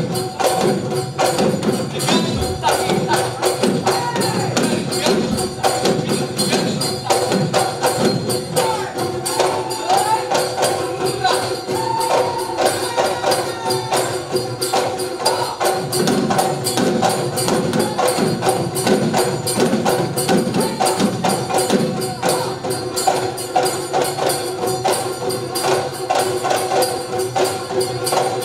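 Live Bihu folk music: dhol drums beating a fast, steady rhythm with jingling metal percussion, over a held melody line.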